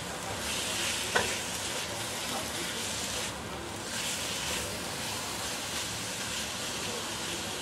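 Sliced fresh squid sizzling as it is stir-fried in a coated wok, the sizzle swelling each time a metal spatula turns it, with one sharp tap of the spatula against the wok about a second in.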